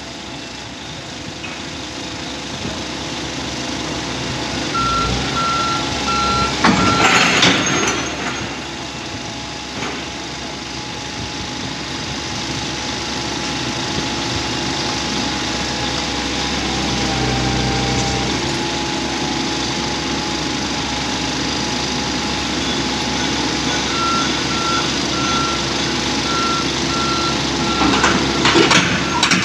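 Excavator engine running steadily, with its travel alarm beeping at a steady pace for a few seconds about five seconds in and again near the end. Two louder bursts of noise come about seven seconds in and just before the end.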